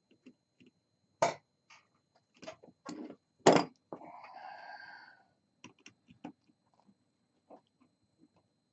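Hand tool snapping and clicking as it bites through a battery's plastic case, a few sharp snaps with the loudest about halfway through. Right after it comes a squeaking sound lasting about a second, then lighter ticks as the cutting goes on.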